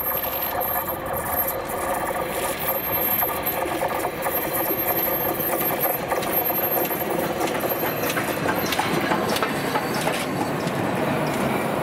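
LNER A4 Pacific steam locomotive 60009 Union of South Africa passing close at speed with a passenger train. Its running noise gives way to the coaches' wheels clicking over the rails in the second half.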